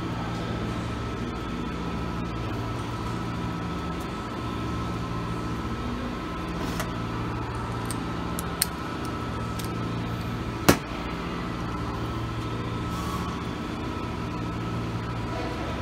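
Steady machine hum of a repair shop, with a few light clicks and one sharp knock about ten and a half seconds in.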